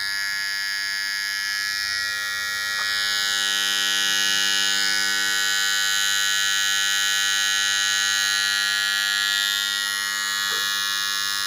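Electric motor starter giving out a loud, steady electrical buzz. The noise comes from the starter's contact pins, which the owner cures by rubbing their edges clean.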